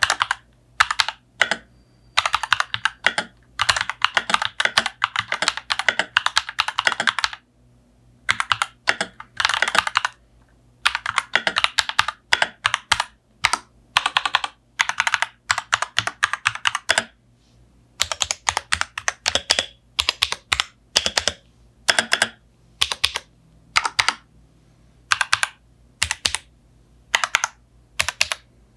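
Typing on RK Royal Kludge mechanical keyboards, the gasket-mount M75 and the plate-mounted RK96, as a sound test. Fast runs of keystroke clicks give way to slower, separate key presses from about two-thirds of the way in.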